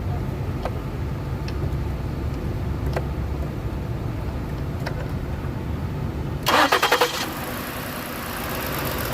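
Ford Explorer engine cranking on the starter, then catching about six and a half seconds in with a short burst of loud pulses and settling into running. The engine has a known misfire.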